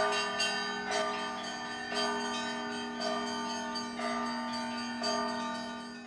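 Russian Orthodox-style church bells pealing, several bells overlapping: a fresh strike about once a second over the sustained hum of a large bell.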